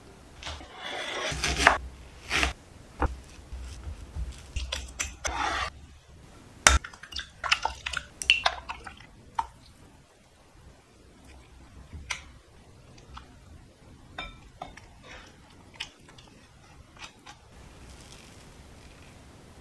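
Kitchen utensils clinking and scraping against metal pans and bowls: a dense run of sharp clinks and knocks in the first half, then scattered lighter taps.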